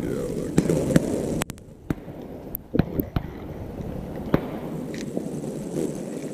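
Handling noise as a hooked bluegill is unhooked by hand: irregular sharp clicks and taps from the hook, rod and fish, over a steady low noise.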